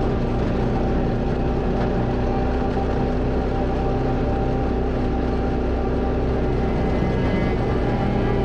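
ATV engine running steadily as the machine drives up a gravel dirt trail.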